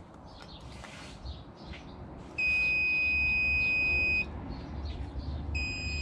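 Digital multimeter's continuity beeper sounding as its probes bridge a blade fuse: a steady high beep lasting nearly two seconds, then a second, shorter beep near the end. The unbroken tone shows the fuse is intact.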